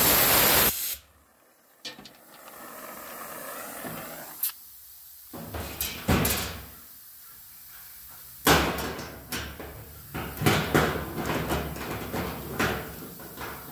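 Oxy-acetylene welding torch hissing loudly, cut off abruptly about a second in. Then scattered metal clanks and rattles as tools are handled on a sheet-metal panel, with sharp knocks from about eight seconds in.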